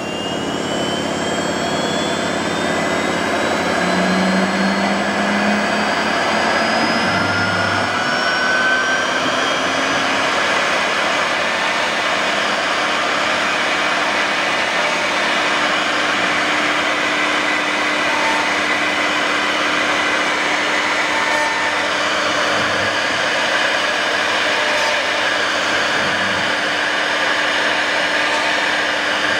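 CNC router spindle and bit cutting plywood: a steady, loud whir and rasp of the cutter in the wood. A thin high whine rises slowly in pitch over the first ten seconds or so.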